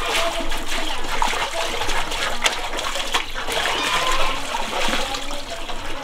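Water splashing and sloshing as plastic basins are washed in a tank of water, with water spilling over a basin's rim and frequent light knocks of plastic.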